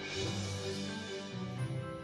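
Instrumental background music with sustained notes over a bass line that changes note several times.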